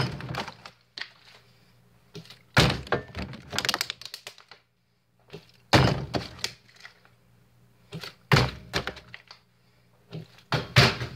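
A partly filled plastic water bottle is flipped and lands on a hard surface with a thunk and a short clatter of bounces. This happens five times, a couple of seconds apart.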